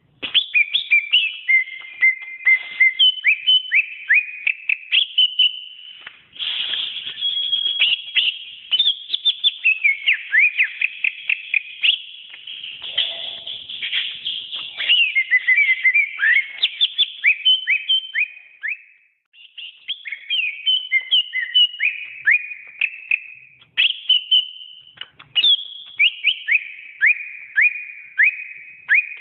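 Greater green leafbird (cucak ijo) singing a long, fast, varied whistled song of quick downward-sweeping notes and warbled phrases, with a short break about two-thirds of the way through.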